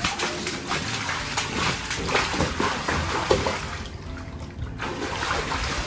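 Water sloshing and splashing around a child's legs as she wades through a shallow inflatable pool, an uneven run of small splashes that eases a little about four seconds in.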